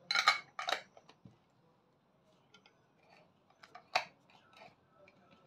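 Metal screw lid twisted onto a glass jar of olives: two short scraping turns in the first second, then small handling ticks and one sharp click about four seconds in.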